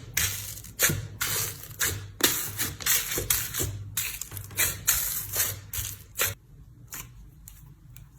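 Slime being squeezed and pressed: a quick, irregular run of crackles and squelchy pops that thins out after about six seconds.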